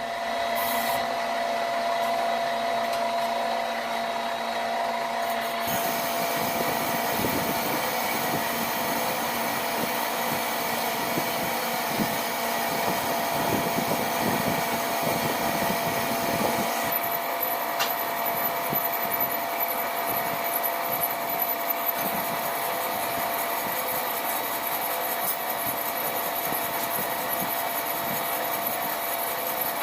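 A power tool or shop machine running steadily at work on metal, with a constant whine over rough cutting noise whose texture changes about 6 seconds in and again later.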